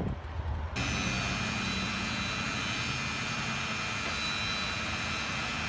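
Wind noise, then from about a second in the steady, even whine of a motor-driven cutting rig as it takes a cut on a windmill's brake wheel while the wheel is turned down true.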